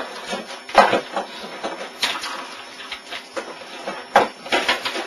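Computer keyboard being typed on hard and fast, an uneven clatter of keystrokes with a louder knock about a second in and another just after four seconds.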